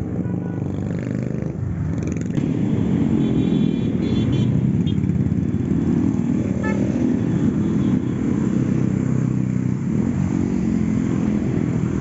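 Engines of a group of motorcycles running together as a column of bikes rides past.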